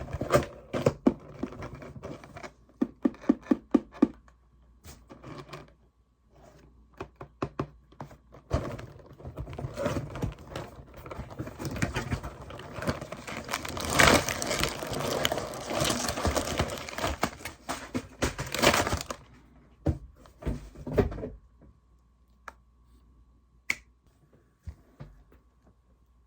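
Packaging being torn and crinkled, with sharp clicks and taps. The rustling is densest in the middle and thins to a few scattered taps near the end.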